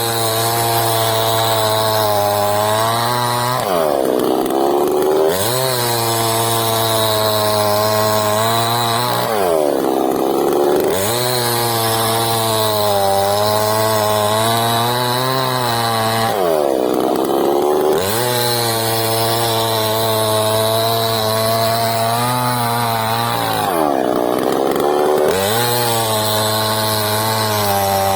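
KROFF petrol chainsaw running at high revs while cutting wood. About every six to seven seconds the engine note dips briefly and climbs back, four times in all.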